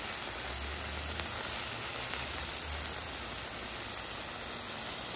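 Chicken breasts with chorizo and fajita vegetables sizzling steadily on a hot Blackstone flat-top griddle.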